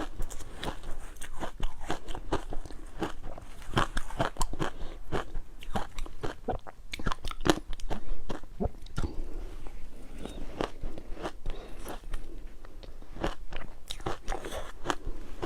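Ice being bitten and chewed close to the microphone: a dense run of sharp, irregular crunches, several a second.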